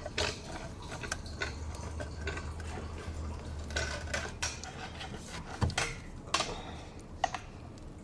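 Metal tools and parts clinking and clattering as they are handled, with a few sharper knocks in the second half.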